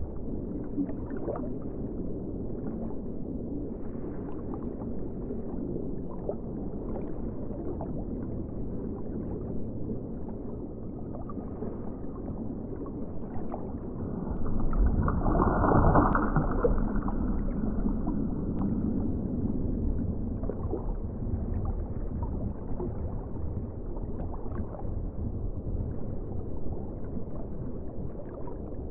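Muffled underwater ambience: a steady, low rumble and gurgle of moving water, with a louder rushing swell about halfway through that lasts a couple of seconds.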